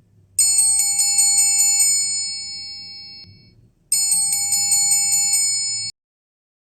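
Samsung Galaxy Watch 8 ringtone: a cluster of high chiming tones pulsing about four times a second. The first phrase fades away over about three seconds, then the pattern starts again and cuts off suddenly about two seconds later.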